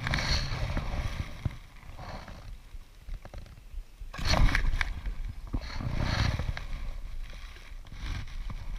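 A water splash as a largemouth bass is let go over the side, then irregular knocks and rustling from gear being handled inside an inflatable boat.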